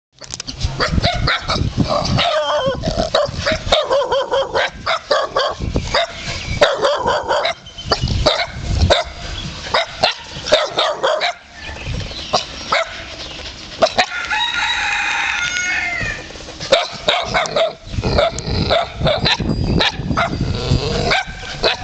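Stray dogs barking as they play-fight. A rooster crows once, a call of about two seconds, a little past the middle.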